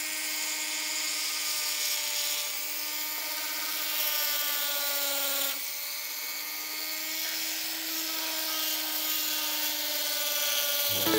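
Rotary tool engraving stone with a thin burr: a steady high whine over a gritty hiss. The pitch sags a little as the bit bites and drops suddenly about halfway through.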